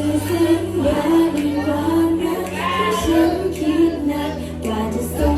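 Pop song with female vocals singing a melody over a backing track with a steady bass line.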